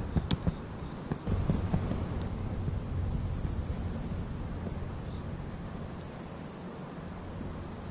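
An insect trilling on one steady high note without a break. A low rumble with a few sharp knocks sits under it in the first two seconds, then fades.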